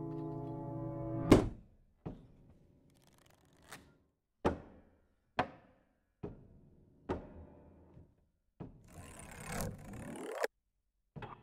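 A sustained reedy chord with many overtones breaks off with a loud struck hit about a second in, followed by about eight more sharp hits on a grand piano, each ringing briefly and spaced under a second apart. Near the end a hissing swell rises and cuts off suddenly.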